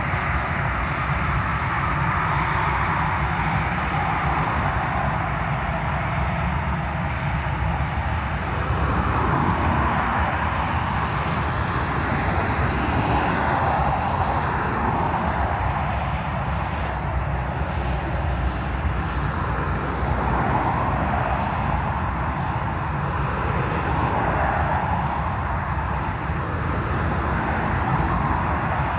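Ryanair Boeing 737-800's twin CFM56-7B turbofan engines running at low taxi power as the jet taxis past: a steady jet engine noise over a deep rumble, swelling gently every few seconds.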